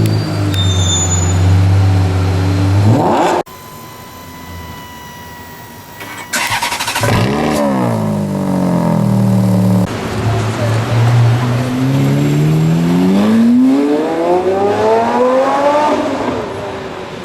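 Supercar engines held at a steady note and then revved, in separately edited clips. There is a quick rev and an abrupt cut, a rev that rises and falls, and near the end a long rev climbing steadily in pitch before it drops away.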